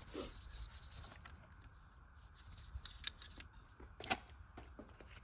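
Chalk line reel being wound in: light, irregular clicks and rattles, with a couple of sharper clicks about three and four seconds in.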